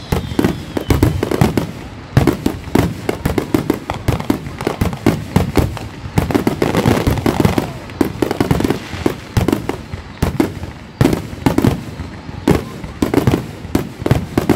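Aerial firework shells bursting in a rapid, continuous barrage of booms, several a second and overlapping, as in a fireworks finale.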